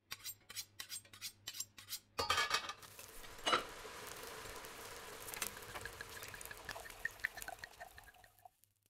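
A knife slicing through roasted rolled lamb on a wooden cutting board, with metal tongs steadying the meat. A rapid series of crisp clicks and scrapes from the blade through the browned crust and onto the board, a sharper knock of metal on wood about three and a half seconds in, then a faint steady hiss with small ticks.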